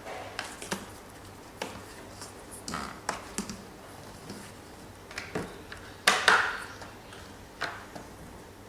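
Scattered, irregular clicks and knocks of objects being handled, with one louder clatter about six seconds in.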